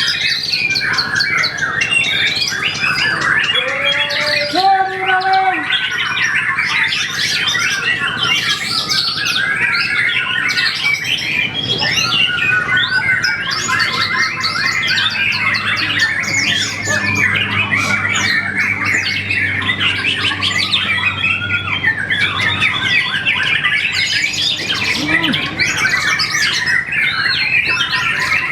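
Caged songbirds singing together: a dense, unbroken stream of overlapping chirps, trills and squawks. A brief lower whistled note sounds about five seconds in.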